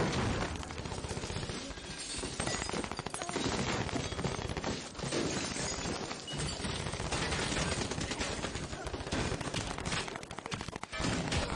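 Heavy gunfire: sustained runs of rapid shots, with a few brief lulls.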